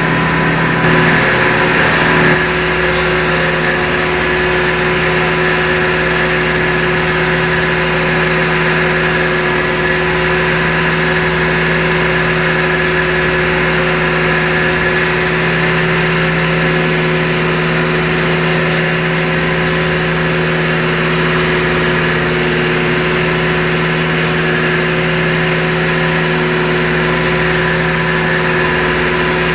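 Fishing boat's inboard engine running steadily underway, a constant droning hum over a steady hiss.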